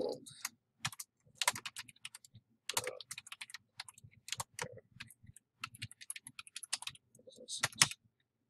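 Typing on a computer keyboard: irregular runs of quick keystrokes with short pauses between words.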